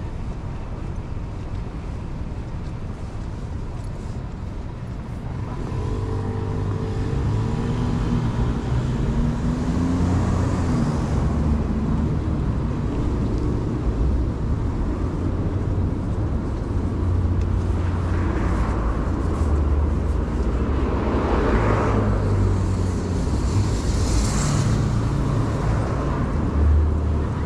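Busy city street: a steady rumble of road traffic on the adjacent road, louder from about six seconds in, with a vehicle passing close by about two-thirds of the way through.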